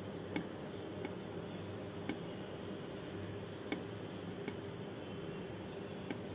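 Faint light clicks at irregular intervals as a metal crochet hook works stitches in yarn, over a steady hiss.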